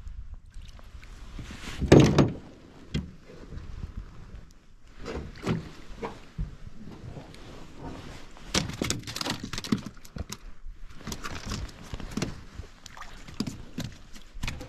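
Irregular knocks and clatters, like gear being handled in a boat, with one heavy thump about two seconds in.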